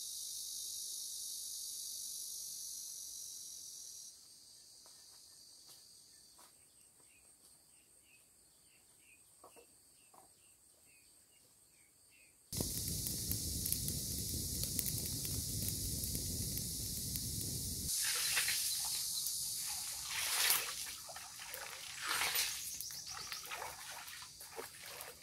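Outdoor riverside ambience joined from several cuts: a steady high hiss for the first few seconds, then a quiet stretch with a few faint chirps. About halfway in, a louder rush of running water starts abruptly, giving way near the end to irregular rustling and clicks.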